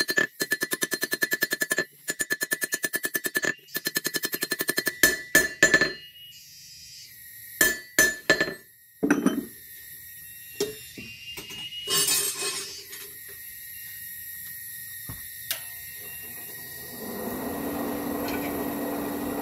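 Steel being struck in a fast, even rapid-fire train, about ten blows a second with a metallic ring, then stopping for a few separate knocks and clatters of metal. Near the end a motor starts and runs with a steady hum.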